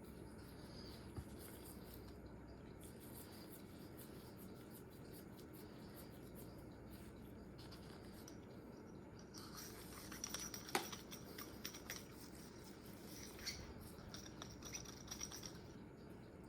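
Faint scratching and rubbing from hand-cleaning a Glock pistol's parts, with a run of quick scraping clicks and one sharp click in the second half.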